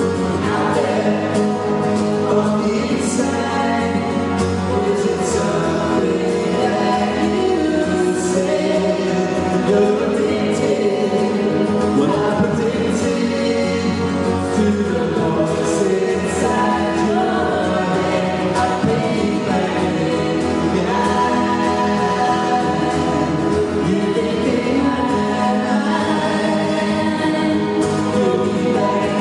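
A live band playing a song, with several voices singing together in harmony over guitar.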